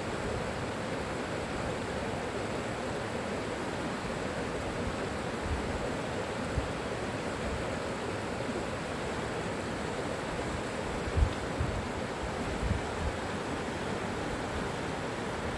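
River water flowing with a steady, even rush. A few brief low thumps stand out in the last few seconds.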